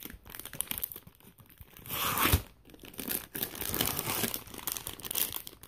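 Crinkly plastic ramen and snack wrappers rustling as packets are shuffled around inside a cardboard box, loudest about two seconds in with a dull bump.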